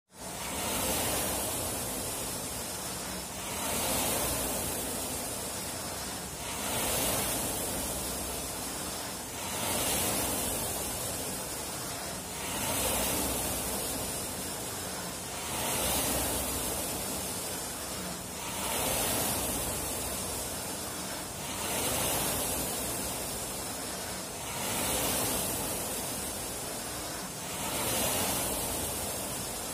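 Indoor rowing machine worked at a steady rate of about twenty strokes a minute. Its flywheel rushes up with each drive and fades away during the recovery, a surge about every three seconds.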